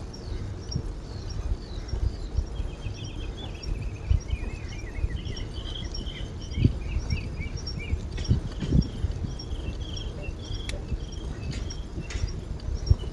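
Wind rumble and irregular bumps from riding a bicycle on a paved path, with small birds chirping and trilling from a few seconds in until near the end. A faint high ticking repeats about twice a second throughout.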